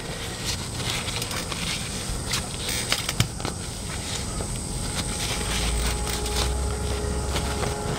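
Hands working a paper towel and the rubber dust seal around a motorcycle's front fork tube: soft rubbing with a few sharp clicks, over a steady background hiss. A low rumble comes in about five seconds in and stops just before the end.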